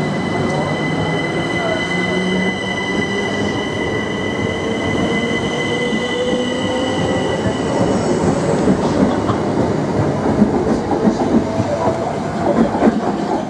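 Southern Class 377 Electrostar electric multiple unit pulling away and accelerating past. A steady high electrical whine fades out about halfway, while a lower whine rises slowly in pitch as the train picks up speed. Wheel clicks over the rail joints grow more frequent in the last few seconds.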